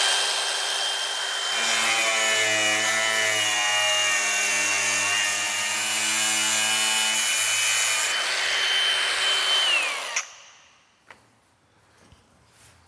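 Milwaukee angle grinder with a slitting (cut-off) wheel cutting into a sheet-metal cabinet panel: a steady high whine from the tool with a loud grinding, ringing cut over it for several seconds. About ten seconds in the grinder is switched off and winds down, its whine falling in pitch.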